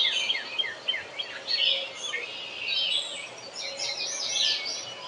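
Wild birds singing: a fast series of short falling chirps in the first second or so, then other song phrases over a steady outdoor background.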